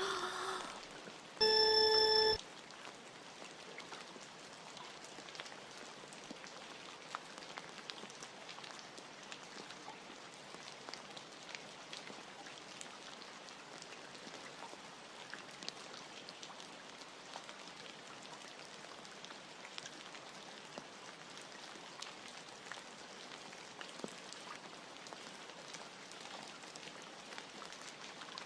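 Steady rain ambience, an even patter with faint drips. About a second and a half in, a loud, short electronic tone sounds for under a second.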